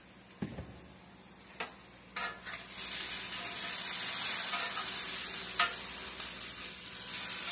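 Diced potatoes frying in a cast-iron skillet, being stirred and turned: a steady sizzle that swells about two seconds in and stays loud, with a few scraping clicks in the pan. A dull knock comes about half a second in.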